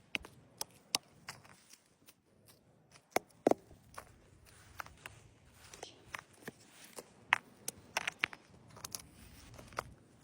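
A run of irregular sharp clicks and knocks, the loudest a pair of knocks about three seconds in.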